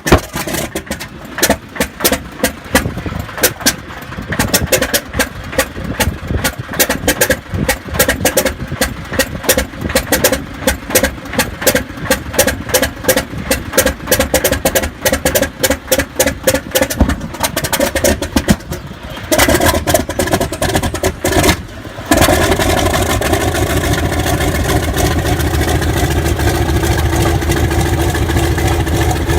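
Old propeller airplane piston engine cold starting: irregular, uneven firings for much of the time as cylinders catch one by one. About three-quarters of the way through, it catches and settles into a steady, louder run.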